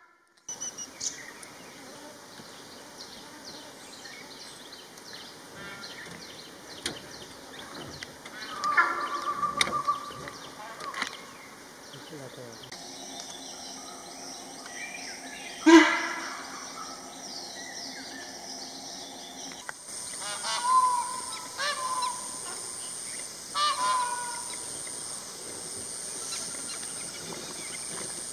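Forest ambience with scattered short animal or bird calls. The loudest call comes about sixteen seconds in, and a cluster of calls follows between about twenty and twenty-four seconds.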